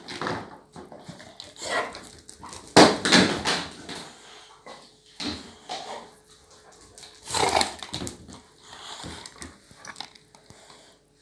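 Boxer dog snorting and sniffing in irregular bursts as he noses under the sofa for his chew bone, the loudest about 3 s in and again near 7.5 s.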